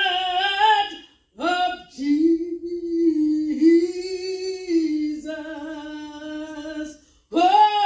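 A woman singing a slow hymn solo, unaccompanied, holding long sustained notes, with short breaths about a second in and near the end.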